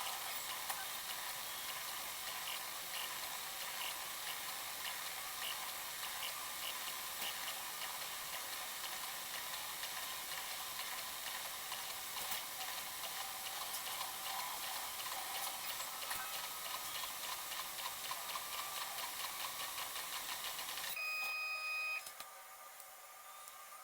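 Bambu Lab A1 3D printer running a print: a steady whir with fast, even ticking from its moving print head. About 21 seconds in the running stops and a short, high electronic beep sounds.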